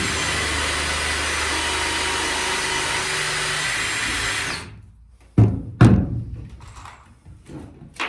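Cordless drill running steadily under load, drilling a pilot hole through a timber batten into the boat's steel angle iron, then stopping abruptly about four and a half seconds in. Two sharp knocks and a few lighter clicks follow, with another knock near the end.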